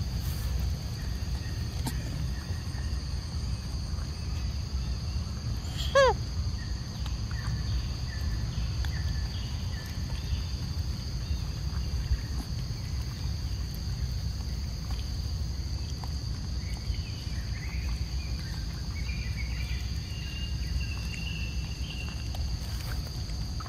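Steady background drone of insects over a low outdoor rumble. About six seconds in, a single short, sharp animal call falls steeply in pitch; it is the loudest sound.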